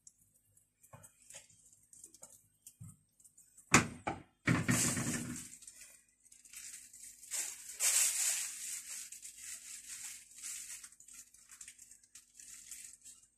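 Plastic piping bag crinkling and rustling in the hand as kunafa batter is squeezed through it in thin strands, with a sharp knock and a short burst of noise about four seconds in.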